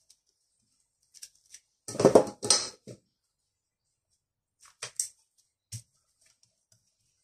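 A plastic rice paddle scraping and knocking inside a metal rice-cooker pot in a few quick strokes about two seconds in, then a few faint clicks and soft rustling as sushi rice is pressed onto a nori sheet.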